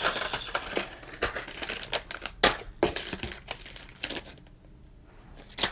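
Crinkling and rustling of plastic packaging as the contents of a fishing-lure subscription box are handled, with sharp clicks mixed in. It goes quieter for about a second near the end, then there is one sharp click.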